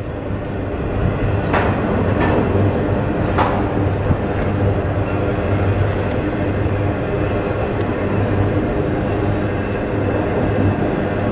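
Double-stack intermodal freight train rolling across a steel girder bridge: a steady low rumble of wheels and well cars, with a few brief sharp clanks about two and three seconds in.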